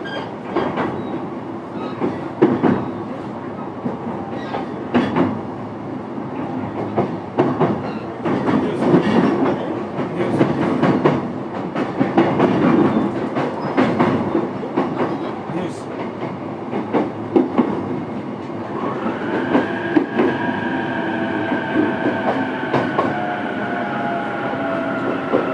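Running sound inside an E233 series electric train's motor car, MoHa E233-3404: wheels click over rail joints. About 18 seconds in, a whine of several tones from the traction motors and inverter starts and slowly falls in pitch as the train slows.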